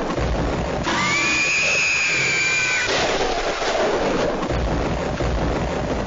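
Loud, harsh and noisy emergency alert alarm audio. About a second in, a tone glides up and holds for about two seconds, then drops away into the noise.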